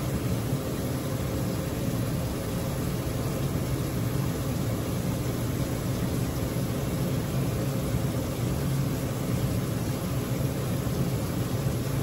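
A steady low machine hum with a faint hiss over it, unchanging in level.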